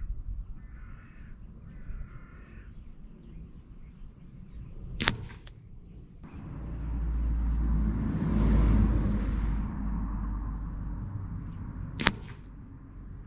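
Two sharp cracks about seven seconds apart as air-rifle pellets from a Reximex Lyra strike the target. Between them a gust of wind buffets the microphone, rising and falling over a few seconds.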